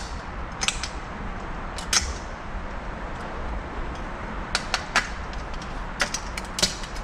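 Sharp metallic clicks and scrapes of a pick and screwdriver prying the 2-4 piston's snap ring out of its groove in a 62TE transmission case. The ring is held tight by the return spring's tension. A couple of clicks come in the first two seconds, then a quicker cluster in the second half.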